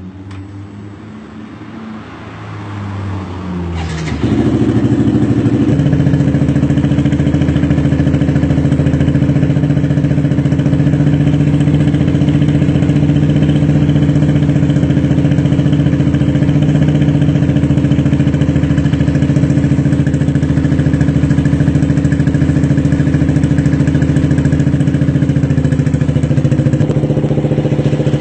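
Motorcycle engine running through an R9 aftermarket exhaust: the revs climb over the first few seconds, then the sound jumps louder about four seconds in and holds one steady note.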